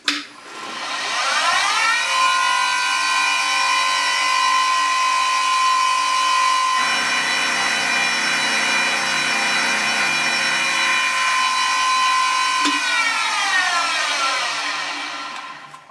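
Deckel G1L pantograph engraving machine spindle starting up with a rising whine, then running at steady speed while its 2 mm end mill plunges into the corner of a toolholder's insert pocket to cut the corner relief. It is switched off about three seconds before the end and winds down with a falling whine.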